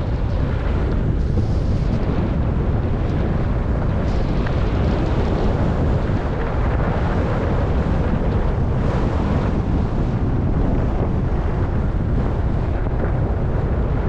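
Wind rushing over a helmet camera's microphone during a downhill ski run, a steady deep rumble with the hiss of skis sliding over groomed snow underneath.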